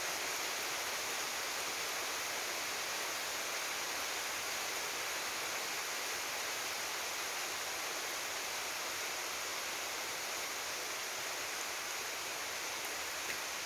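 Rain falling steadily in a forest, an even hiss without let-up.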